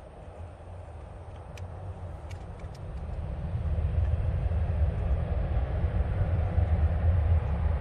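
Boeing 737-800's CFM56-7B turbofan engines at takeoff thrust: a low rumbling roar that grows clearly louder about three seconds in as the airliner takes off. A few brief high chirps sound in the first three seconds.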